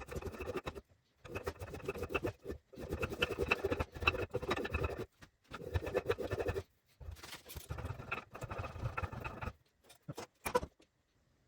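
A hand tool scraping and shaving along a juniper axe-handle blank in about six repeated strokes, each one to two seconds long, with short pauses between.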